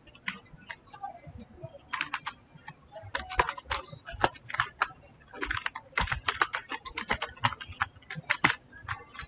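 Typing on a computer keyboard: a few scattered key clicks, then fast, irregular runs of keystrokes from about two seconds in.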